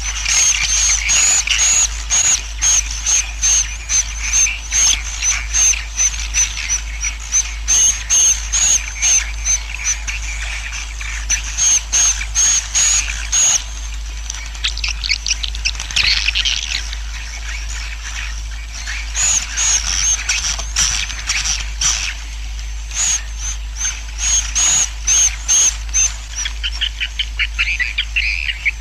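Swiftlet colony roosting call, a recorded lure played to draw swiftlets to roost and settle in a swiftlet house. Many swiftlets twitter at once in quick series of high chirps, about two a second, that pause midway. Buzzy trilling grows stronger near the end, all over a steady low hum.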